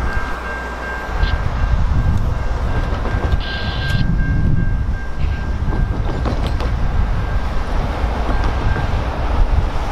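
Railroad grade-crossing warning bell ringing steadily as the crossing gates rise, stopping about nine seconds in, over a loud low rumble of the train that has just cleared the crossing.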